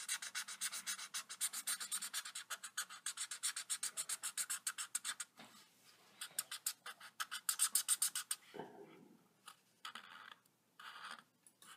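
Felt-tip marker scribbling on paper: fast back-and-forth colouring strokes, about six a second, for the first five seconds. After that come pauses, a short burst of quick strokes, and then scattered single strokes.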